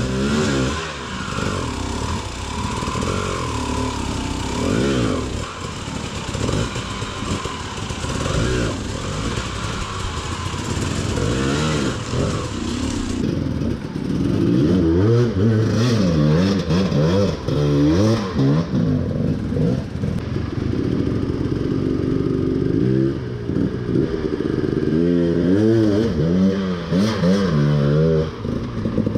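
Enduro dirt bike engine revving up and down over and over as the rider works the throttle, louder and busier in the second half.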